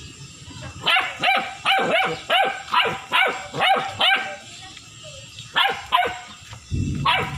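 Black German shepherd puppy barking: a quick run of about ten barks, roughly three a second, then a pause and a few more barks near the end.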